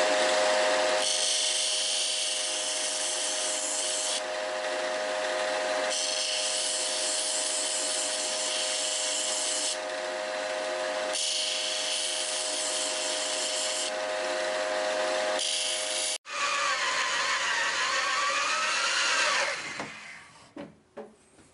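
Disc sander running with a steady hum while a twist drill bit is ground freehand against its 100-grit sanding disc, making a hissing grind in three stretches of a few seconds each. After a sudden cut about 16 seconds in, a drill press drills into a metal plate with the resharpened bit for about three seconds, its pitch wavering, then stops.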